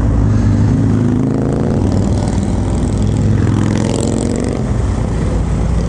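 Harley-Davidson FXDR's V-twin, bored out with a 117 kit, running loud through a Bassani Road Rage exhaust as the bike accelerates, its pitch climbing twice.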